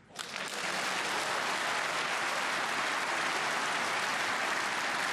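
Snooker audience applauding, breaking out at once and holding steady throughout. The commentator thinks the applause is for a player on another table.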